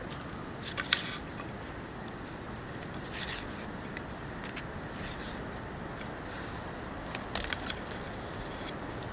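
A knife and food pieces being handled on a carved wooden plate: several short scrapes and taps spread through, the sharpest about a second in and again near the end, over a steady background hiss.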